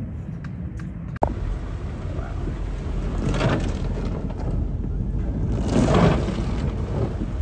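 Heavy rain and cars driving through deep floodwater: a steady low rumble with rushing, splashing water that swells about three and a half and six seconds in. A short sharp click comes about a second in.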